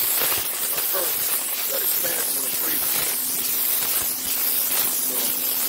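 Pressure washer jet spraying water onto a concrete slab: a loud, steady hiss over a low, even hum.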